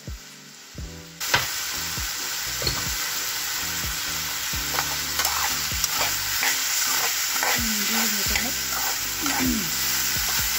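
Diced raw plantain sizzling in hot oil in a frying pan while a spoon stirs it, the spoon scraping and clicking against the pan. The sizzle comes in suddenly about a second in and then holds steady.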